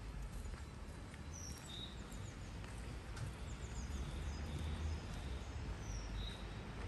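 Outdoor street ambience: footsteps on wet brick paving over a low steady rumble, with small birds chirping now and then.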